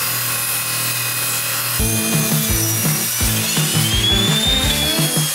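Table saw ripping a thick timber beam: a steady high blade whine over the motor hum, the pitch sagging and then rising again as the wood is fed through. Background music with a stepping bass line comes in about two seconds in.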